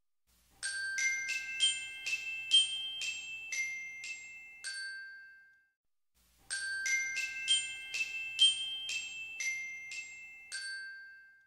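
Short outro jingle: a bell-like melody of about ten struck, ringing notes in quick succession. After about a second's pause the same phrase plays again.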